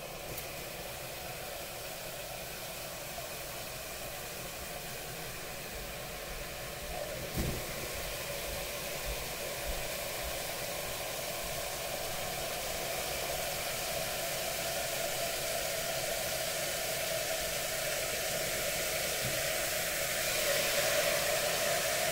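Liquid nitrogen hissing as it boils off in a copper LN2 pot while it is poured down toward full pot, growing gradually louder. A brief knock about seven seconds in.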